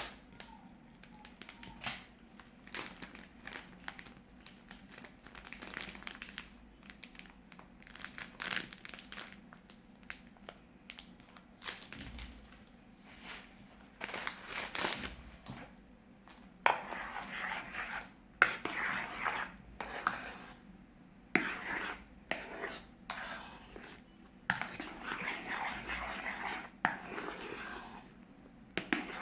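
Plastic piping bags crinkling while slime is squeezed and worked by hand, with sticky crackles and clicks. It grows busier and louder about halfway through.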